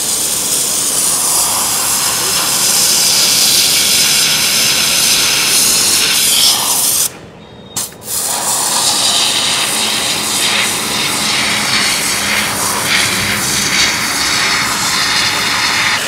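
High-pressure washer jet hissing as it blasts a paving brick on wet concrete, cutting into the brick. The spray drops away for about a second roughly seven seconds in, then resumes.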